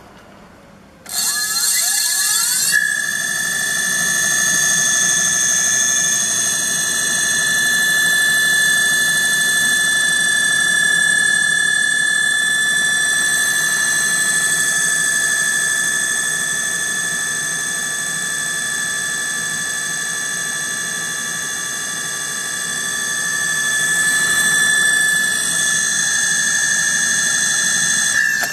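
Brushless gearless direct-drive hub motor of an 18-inch 1000W e-bike/scooter kit spinning up under throttle with no load: a whine that rises in pitch for about a second and a half from about a second in, then holds steady and loud at top speed, around 64 km/h on the display.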